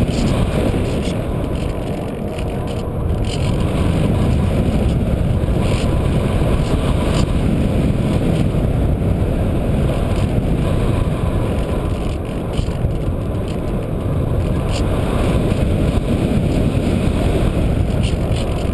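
Loud, steady rush of airflow over a Radian RC glider's onboard camera in flight, with a faint steady whine.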